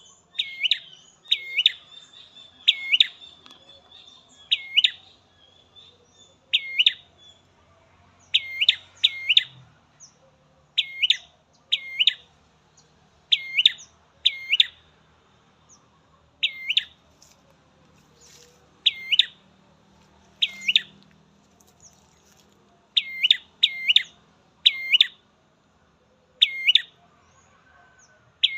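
A small songbird that Indonesian bird keepers call prenjak merah, repeating a short, sharp chirp that dips and rises in pitch, singly or in quick pairs every second or two.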